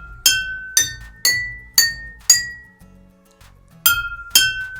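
Glass jars tuned with different water levels, struck one after another with a spoon like a glockenspiel, each giving a clear ringing note. The notes step up in pitch about two a second, pause briefly, then start again from the low note.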